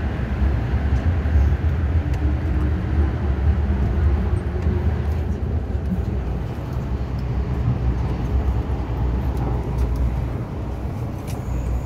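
MTR M-Train electric multiple unit running along the line, heard from inside the car: a steady low rumble of wheels on rail and running gear.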